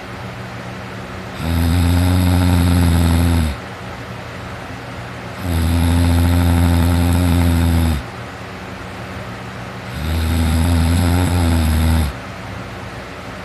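A teenage boy snoring heavily while sleeping on his back: three long, low snores of about two seconds each, coming roughly every four seconds, with softer noise between them.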